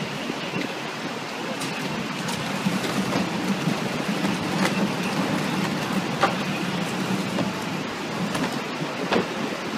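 Steady city street noise with a low engine hum running under it, broken by a few sharp knocks, the loudest about six and nine seconds in.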